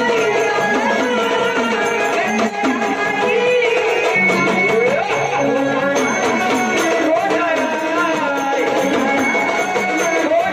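Marathi folk devotional music: a gavlan sung by a woman's voice, with a hand drum keeping the beat.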